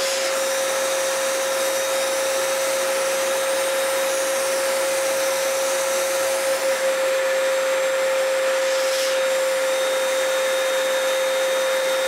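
HVLP turbine spray gun running steadily while spraying varnish: a constant rushing hiss of air with a steady whine from the turbine.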